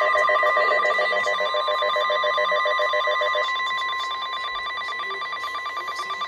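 NOAA Weather Radio warning alarm tone, a steady 1050 Hz tone that signals a severe thunderstorm warning is about to be broadcast. A second, rapidly pulsing tone sounds over it and stops about halfway through.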